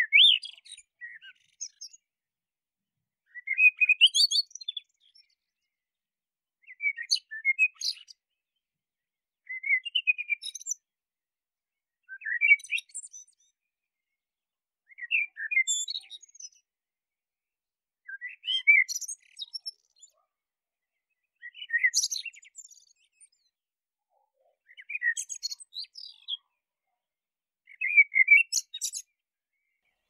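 Male common blackbird (Eurasian blackbird) singing: short phrases of fluty whistles, each ending in a higher twitter, about one every three seconds with silence between.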